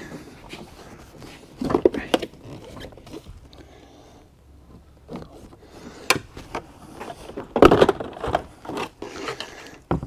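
Plastic interior trim panel being handled and worked loose by hand: scattered knocks, rustles and a sharp click, with the loudest handling noise about eight seconds in.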